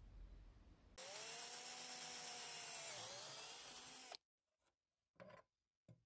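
Power drill boring through a timber beam, running for about three seconds with a faint motor whine under the cutting noise, then stopping abruptly; a couple of faint clicks follow.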